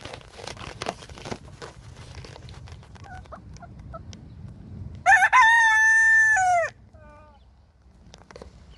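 Wyandotte rooster crowing once, about five seconds in: a single loud crow of about a second and a half that drops in pitch at the end. Short rustles and clicks come before it, and a few soft clucks follow.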